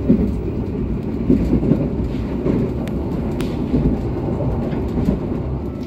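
Passenger coach of a moving train heard from inside: a steady low rumble of the running gear on the track.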